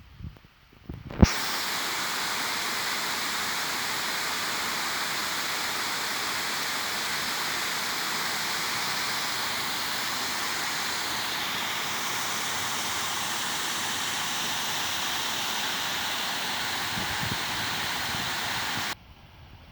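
A steady, even rushing hiss, like rushing water or white noise, that starts sharply with a click about a second in and cuts off suddenly near the end.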